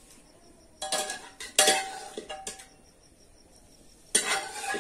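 A steel slotted spoon clinks and scrapes against a steel pressure cooker pot while boiled brinjals are lifted out. There are three bursts of metallic clinks with a short ring: about a second in, around two seconds, and near the end.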